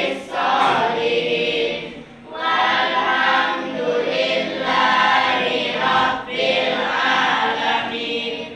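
A class of schoolchildren singing together in unison, in long held phrases with short breaks about two and six seconds in.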